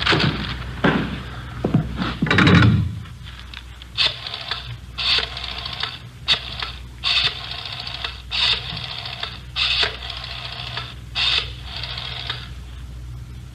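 Rotary telephone being dialed: seven digits one after another, each a short run of clicks as the dial turns and runs back. A knock and rustling come first, in the opening seconds.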